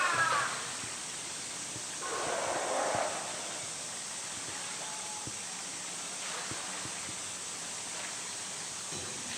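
Polar bear splashing hard at the surface of its pool, then swimming with soft lapping water, over a steady outdoor hiss. A brief louder patch comes about two seconds in.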